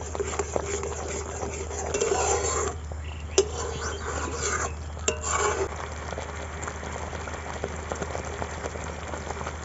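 Spatula scraping and stirring a thick, bubbling mango pudding mixture in a metal wok, with sizzling, sputtering and a few sharp clicks of the spatula against the pan. The mixture is thickening near the end of its cooking. A steady low hum runs underneath.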